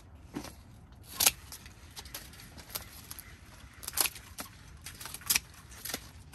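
Hand pruning shears cutting the lower leaves off corn stalks: about nine sharp metallic clicks and snips at uneven intervals, the loudest about a second in.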